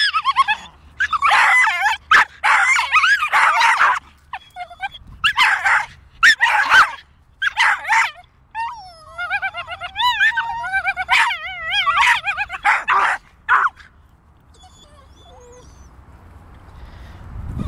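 Two American Hairless Terriers vocalising in short bouts of high, wavering calls, one after another, falling quiet about fourteen seconds in.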